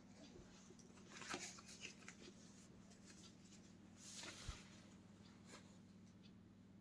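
Near silence with faint rustles of denim jeans being handled, about a second in and again around four seconds in, over a steady low hum.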